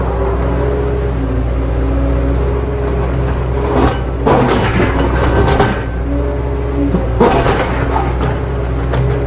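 Toy vehicles clattering and scraping in two bursts, about four and seven seconds in, over a steady low hum and a simple repeating tune.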